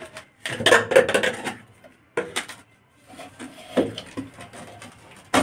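uPVC drain pipe and fittings clattering and knocking as the pipe is pushed into a fitting's socket and handled: irregular bursts of hard plastic knocks and scrapes, busiest about a second in, with a sharp knock at the very end.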